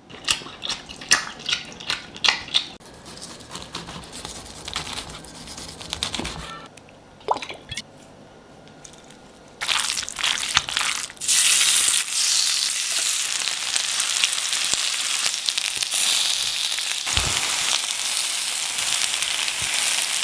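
Food frying in hot oil in a pan: a steady, loud sizzle from about ten seconds in, preceded by a series of sharp clicks and knocks from kitchen work.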